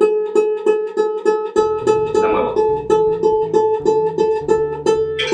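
Ukulele's first string (A) plucked over and over, about three times a second, while its tuning peg is turned: the string is slightly flat and is being brought up to A.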